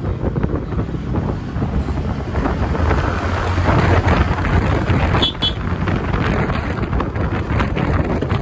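Wind buffeting the microphone over the TVS Ntorq 125 scooter's single-cylinder engine running as it speeds up along a lane. A brief high tone sounds about five seconds in.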